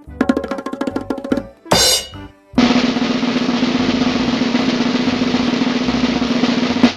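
Drum roll sound effect, a rapid run of snare strokes lasting about a second and a half, followed by a short swish. From about two and a half seconds a steady, loud noisy sound with a low hum runs for about four seconds and cuts off suddenly.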